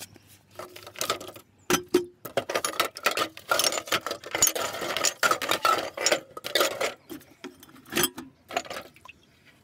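Glass bottles and metal cans clinking and rattling against each other in a plastic bucket as a hand rummages through them, in a rapid, irregular clatter with short rings.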